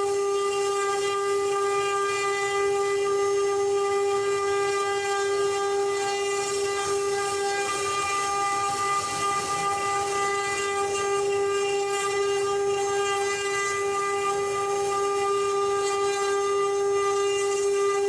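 CNC wood-engraving router's spindle motor running at a steady high speed: a constant whine with a hiss over it.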